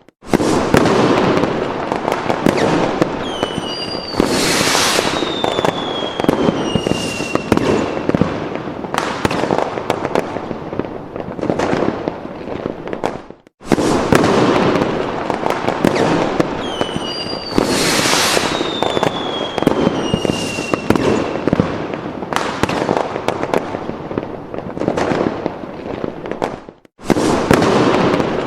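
Fireworks sound effect: dense crackling and popping bursts with whistles gliding down in pitch. The same stretch repeats as a loop about every 13 to 14 seconds, with a brief break at each restart.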